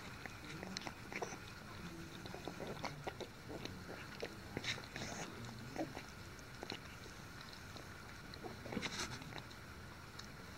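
Young puppies moving about and licking at a bowl of soaked puppy food: faint, irregular small smacks, clicks and rustles.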